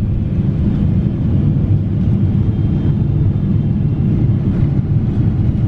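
Boeing 777 cabin noise: a steady low rumble of the aircraft.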